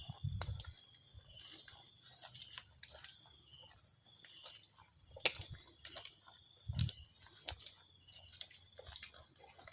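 Insects trilling steadily at a high pitch, with scattered sharp clicks and a couple of low thumps.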